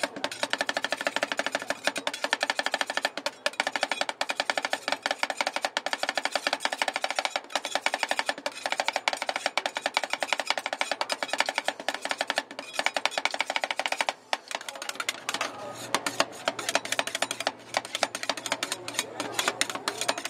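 Two metal spatulas rapidly chopping strawberries into ice cream base on a steel cold plate: a fast, steady metallic clacking with a ringing note from the plate. After about fourteen seconds the clacking thins out into more scattered taps and scraping.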